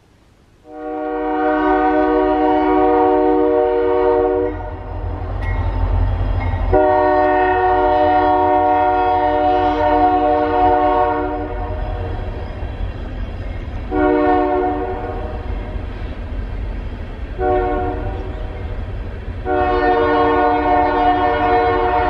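Multi-tone train horn sounding a sequence of blasts: two long blasts, two short ones, then a long one that carries on, over the steady low rumble of the passing train.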